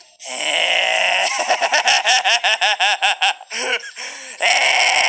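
A high, strained voice laughing wildly: a drawn-out shriek at the start, then quick rhythmic 'ha-ha-ha' pulses about six a second, and a short harsh scream near the end.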